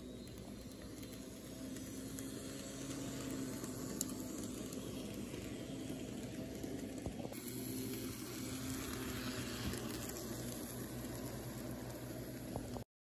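N scale model train running on its track: a steady electric motor whir with the rolling hiss of small wheels on the rails, growing louder over the first few seconds as the train nears. It cuts off abruptly near the end.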